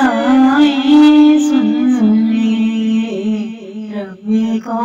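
Background song: a singing voice holding long, wavering notes, with a brief dip about four seconds in.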